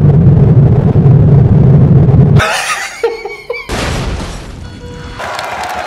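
Film-trailer sound design: a loud, deep rumble for the first two and a half seconds, then abrupt cuts between short clips, one of them a car-chase explosion, a fireball blast on the road ahead.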